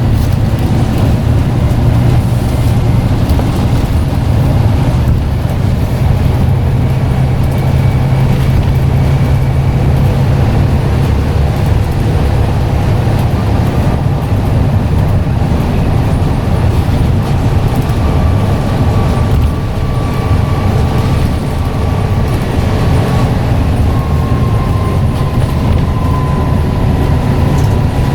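Scania N94UD double-decker bus engine running with a steady, loud low drone. A faint high whine comes and goes over it, wavering in pitch during the second half.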